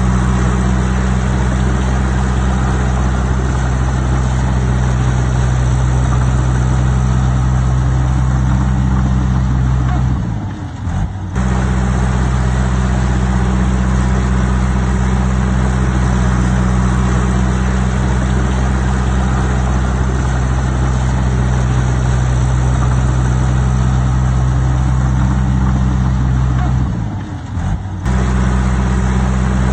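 Heavy earthmoving machine's diesel engine running steadily under work. The sound briefly dips and breaks off twice, about ten seconds in and again near the end.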